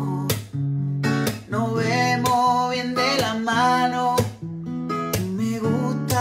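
Acoustic guitar with a capo strummed in chords, with a man singing along over it.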